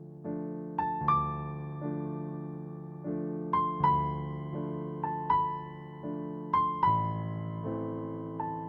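Background music: soft piano (or electric piano) playing slow chords with a simple melody on top, each note struck and then fading.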